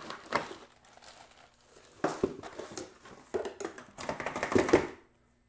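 Cardboard packaging and plastic wrap being handled as a wrapped touch panel is lifted out of its box and the cardboard inserts are moved: rustling and scraping in several bursts, the loudest about four to five seconds in, cutting off suddenly shortly before the end.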